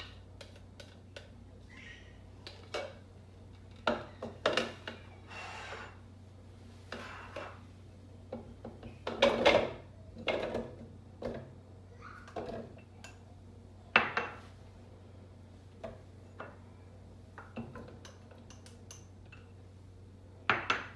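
Handling of kitchenware: a spatula scraping and tapping against small ceramic ramekins and a plastic blender jar, with scattered clinks and knocks as dishes are picked up and set down. A few louder knocks stand out near the middle and the end.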